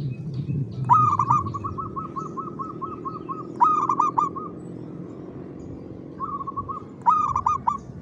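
Zebra dove (perkutut) singing three song phrases: each opens with a loud rolling coo, and the first trails into a long run of quick, soft repeated notes.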